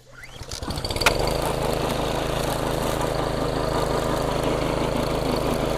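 DR Professional walk-behind string trimmer's gas engine pull-started at the fast (rabbit) throttle setting: it turns over for about a second, catches, and settles into steady running.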